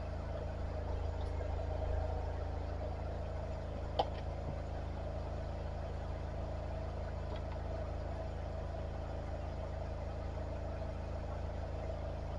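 High-pressure drain jetter's engine running steadily at idle, with a single sharp click about four seconds in.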